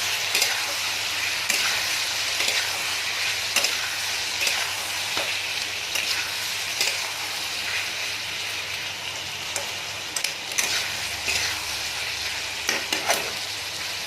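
Potatoes in spiced oil sizzling steadily in a kadhai while a spatula stirs and scrapes the pan, with a short knock about every second and a burst of louder knocks near the end.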